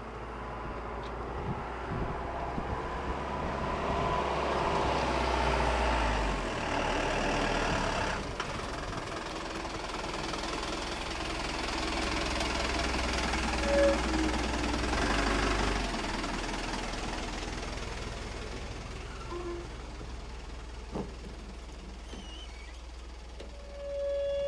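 Asa Coast Railway DMV, a minibus-based dual-mode rail/road vehicle, running on its diesel engine as it approaches and passes close by. The engine grows louder twice, then fades as it moves away onto the rails. A short pitched tone sounds near the end.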